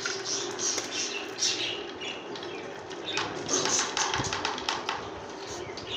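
Small marbles rolling down a wavy groove cut in a wooden board, clicking against the groove walls and each other over a steady rolling rumble. The clicking is thickest about halfway through.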